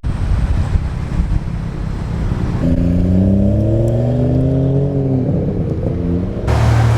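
Car engine running and accelerating, its pitch rising for a couple of seconds in the middle, then switching abruptly to a steady low engine hum near the end.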